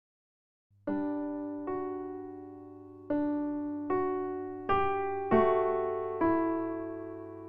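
Background music: slow electric-piano notes, each struck and left to ring out, about one a second, starting about a second in over a faint steady low hum.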